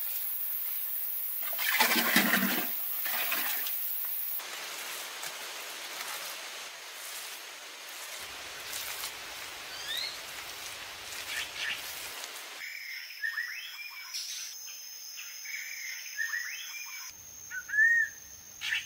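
Wet, squelching rubs of bare hands smearing mud plaster onto a wall, loudest about two seconds in. Birds chirp in short calls through the second half, over a steady high insect whine.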